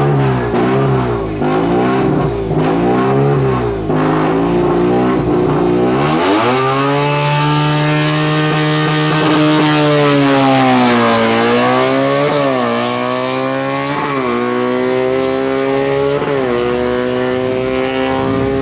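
Racing car engine at full throttle on a hill-climb course. Its revs swing quickly up and down for the first few seconds, then climb in one long pull, hold, and jump sharply several times with gearshifts in the later part.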